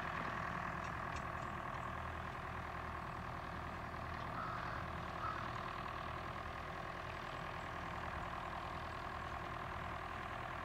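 1971 David Brown 990 tractor's four-cylinder engine running steadily under load while driving a Woods bush hog (rotary mower) cutting the hillside.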